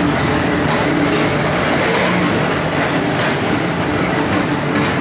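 Tomorrowland Transit Authority PeopleMover car running along its elevated track: a steady rolling rumble.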